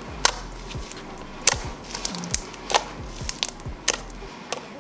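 Slime being squished and stretched by hand, giving sharp, irregular pops and clicks of trapped air, about one every second.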